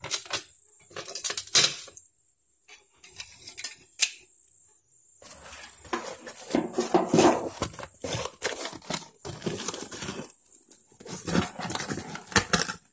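Cardboard packaging being torn and pulled apart by hand: uneven rustling, scraping and tearing with a couple of short pauses.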